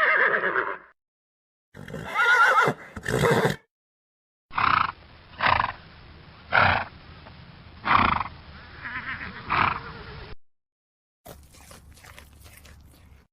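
Horses neighing in separate clips with sudden silences between: a long whinny with a quavering pitch, then a run of five short calls about a second apart. Faint clicking near the end.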